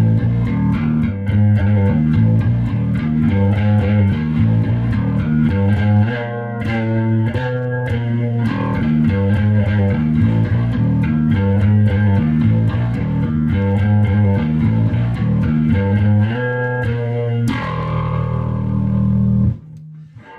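Gibson Les Paul Money Bass played solo on its bridge pickup alone with the tone control all the way up: a busy repeating riff of picked notes. Near the end one note is left ringing for a couple of seconds before it stops.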